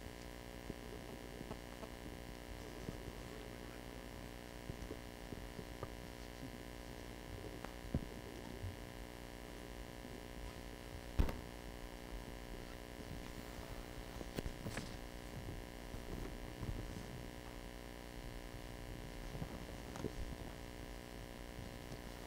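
Steady electrical mains hum from the hall's microphone and sound system, with a few faint knocks, the sharpest about eleven seconds in.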